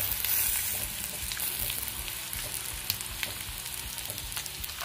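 Hot oil sizzling steadily around marinated chicken pieces deep-frying in a kadai, with scattered small pops and crackles.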